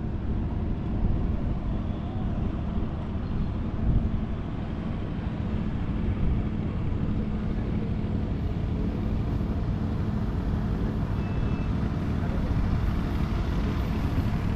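A boat's engine droning steadily at one low pitch.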